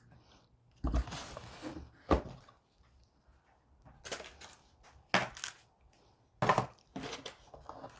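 Cardboard packaging and a paper leaflet handled around a cast iron grill pan: several short rustling, scraping bursts, with a dull thunk about two seconds in.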